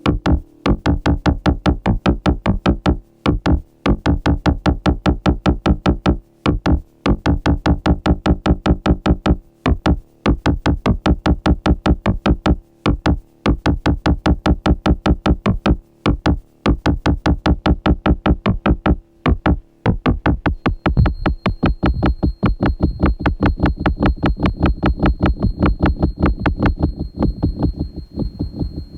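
Pittsburgh Modular Voltage Lab 2 analog synthesizer playing a fast sequenced pattern of short, repeated notes, about seven a second, with brief gaps every few seconds. About two-thirds of the way through, a steady high tone joins the pattern. Near the end the notes turn duller and fade down.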